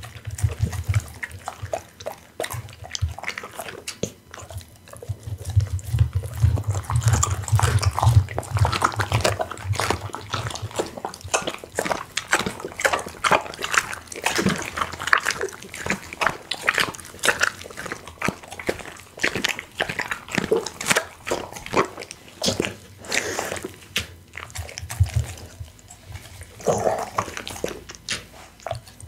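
Pit bull chewing raw food right at the microphone: dense, irregular crunching and cracking as it bites through a whole raw quail, bones and all, mixed with wet smacking and slurping of raw meat.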